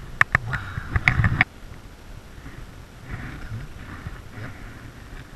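Water splashing and slapping as a big fish is released by hand into a shallow river: a quick run of sharp splashes for about a second and a half, then only a faint hiss of moving water.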